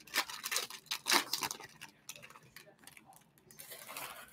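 Foil wrapper of a jumbo trading-card pack crinkling and tearing as it is opened by hand. A few sharp rustles come in the first second and a half, then quieter rustling, with a softer swell of it near the end.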